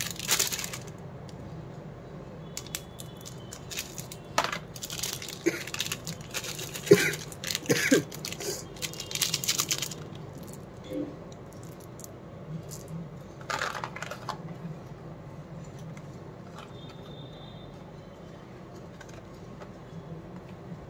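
Plastic wrapper of a Cadbury Gems packet crinkling as it is snipped open with scissors, and small sugar-coated chocolate buttons clicking against each other as they are tipped into a palm. The crinkling and clicking come in bursts in the first half, with one more short crinkle a few seconds later.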